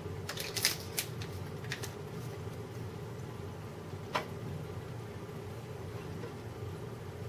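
Plastic supplement bottle being handled: a quick run of light clicks as the cap is closed, then a single knock about four seconds in as the bottle is set down, over a steady low hum.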